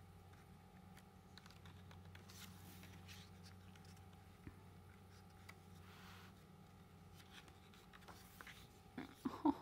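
Faint rustling and soft ticks of a K-pop album's photobook and its paper pages being handled and turned, over a low steady hum.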